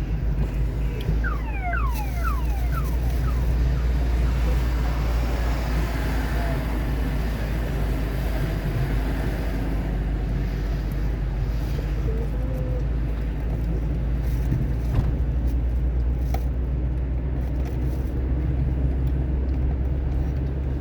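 Car driving on a rain-wet road: a steady low rumble of engine and tyres, with road hiss over it. About a second in comes a quick run of short high chirps, and a couple of faint ticks follow later.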